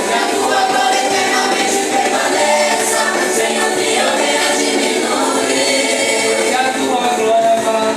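Choir of voices singing a gospel worship song in harmony, steady throughout.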